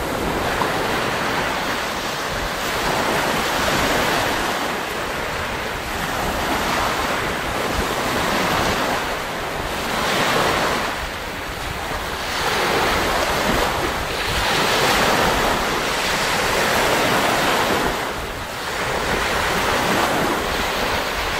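Small waves breaking and washing up a pebbly shore, swelling and fading every few seconds, with wind buffeting the microphone.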